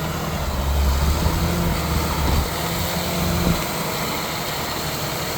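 Tractor engine running steadily under load while pulling a roller crimper through a cereal rye cover crop; a low steady hum, with one engine tone dropping away about three and a half seconds in.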